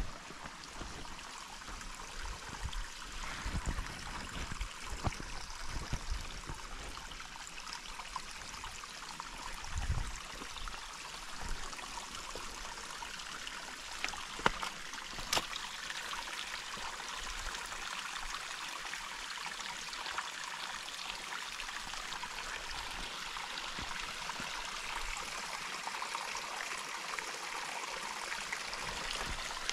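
Running water of a stream, a steady rushing hiss that grows a little louder toward the end. A few low thumps in the first twelve seconds or so, and one sharp click about 15 seconds in.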